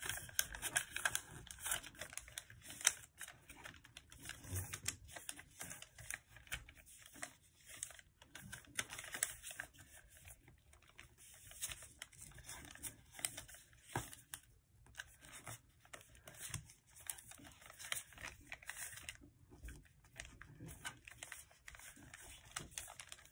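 Sheet of origami paper being folded and creased by hand, with irregular crinkling, rustling and small crackles as the creases are pressed.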